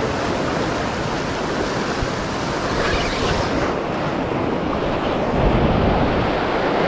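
Sea surf breaking and washing over shoreline rocks, a steady rushing wash, with wind buffeting the microphone. The low rumble grows a little stronger about five and a half seconds in.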